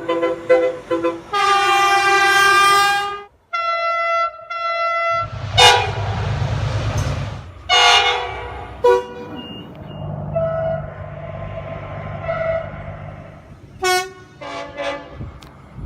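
A run of train horn blasts from different trains, cut one after another: a few short toots, a long blast lasting about two seconds, a brief gap, then a pair of higher toots. From about five seconds in, more short horn toots sound over the low rumble of a passing train.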